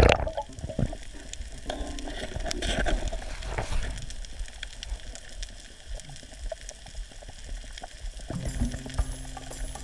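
Underwater crackling and sizzling heard through a camera housing on a reef at night, the kind of crackle that snapping shrimp make, with a sharp knock right at the start.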